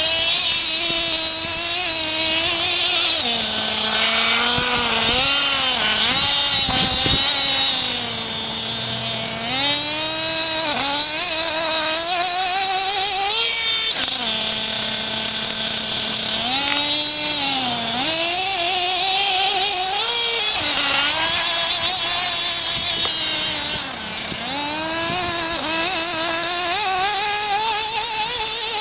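Nitro radio-controlled car's small glow-fuel engine running, its pitch rising and falling again and again as the throttle is worked. The engine is not yet tuned. Loudness dips briefly about eight seconds in and again near twenty-four seconds.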